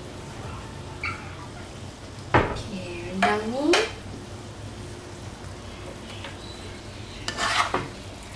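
Metal spatula stirring thick chicken rendang in a wok, scraping and knocking against the pan over a low sizzle. A short rising squeal comes about three seconds in.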